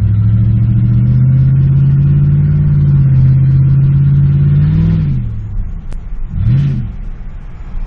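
Car engine running under way: its note climbs as it pulls, holds steady, then drops away about five seconds in, with one brief rise and fall in pitch near the end.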